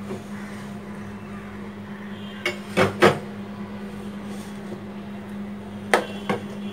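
Kitchen knife cutting roasted eggplant and knocking against a ceramic plate: three sharp clicks about two and a half to three seconds in and two more near six seconds, over a steady low hum.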